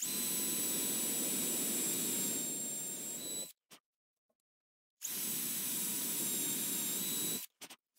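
Cordless drill running twice under load in wood with a steady motor whine: first boring a pilot hole with a twist bit for about three and a half seconds, then, after a sudden stop and a silent gap, counter-sinking with a combined drill-and-countersink bit for about two and a half seconds.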